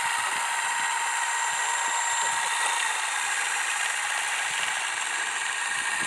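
Remote-controlled tracked aircraft tug driving across the tarmac, its drive motors giving a steady high-pitched whine.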